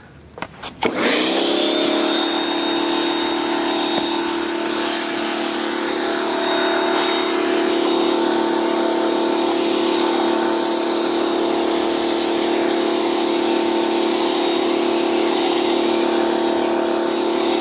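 Pressure washer motor and pump starting about a second in and then running steadily, feeding a wheeled undercarriage washer whose jets spray water against the car's underside with a steady hiss.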